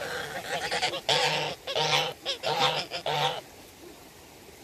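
Domestic geese honking: softer calls first, then about four loud honks in quick succession between one and three and a half seconds in.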